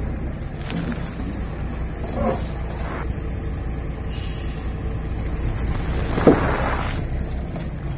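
Truck engine running steadily under the slow roll of its tyre over a plastic snack bag. About six seconds in, a sharp pop as the tyre bursts a sealed, air-filled bag of potato chips.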